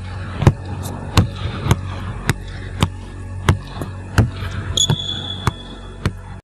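A ball bouncing on a hard floor again and again, about one and a half bounces a second, over a steady low hum. A thin high tone comes in near the end.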